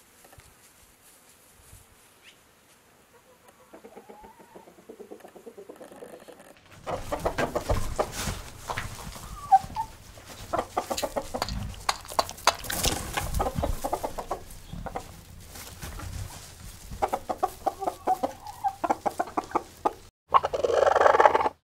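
A flock of domestic hens clucking, faint at first and then louder and busier from about seven seconds in, over a low rumble. Just before the end comes a louder drawn-out call.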